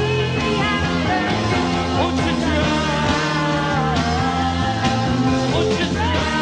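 Psychedelic rock band playing live: an instrumental jam of electric guitar lines with bends over a steady rhythm section.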